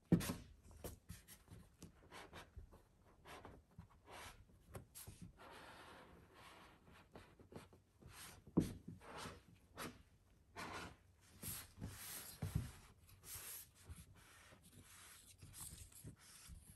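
Squeegee wrapped in a microfiber towel rubbing and scraping over a vinyl decal on a car bonnet in short, irregular strokes, faint throughout, with one louder click about halfway through.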